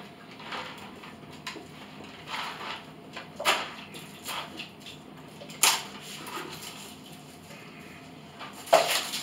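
Kitchen handling noise: a plastic snack packet crinkling as it is opened, broken by a few sharp clicks and knocks, the loudest near the end.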